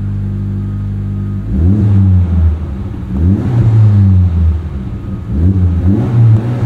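Honda Civic Type R FL5's turbocharged 2.0-litre four-cylinder idling through an MRT Street Race straight-through axle-back exhaust, then blipped three times in place from about a second and a half in. Each rev rises in pitch, holds briefly and drops back to idle.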